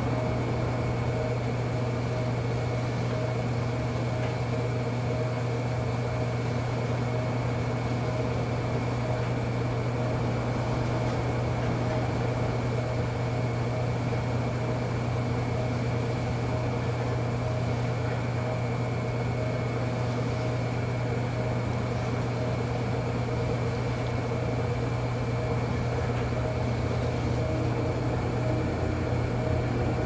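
Potter's wheel motor running at a steady speed: a constant hum with a few fixed higher tones over it.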